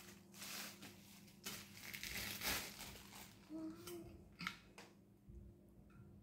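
Clear plastic wrapping crinkling and rustling as it is pulled off a water bottle. A couple of sharp clicks follow about two-thirds of the way in, as the bottle's lid is handled.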